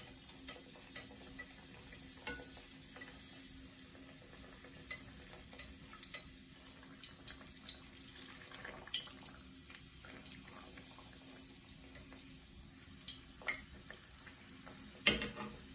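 Dough frying in hot oil in a metal frying pan, a faint sizzle under scattered light clicks and taps of thin wooden sticks against the pan, with a louder clack near the end. A steady low hum runs underneath.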